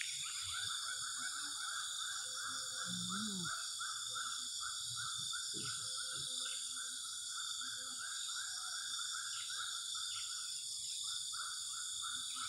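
Insect chorus: a steady high-pitched drone, with a rhythmic pulsing call repeating about three times a second.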